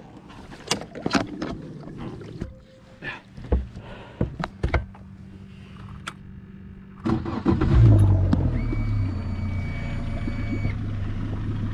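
Scattered clunks and knocks as a bow-mounted Minn Kota Riptide trolling motor is stowed. About seven seconds in, a Yamaha 90 outboard cranks, catches and settles into a steady idle. A high steady tone sounds for about two seconds just after it starts.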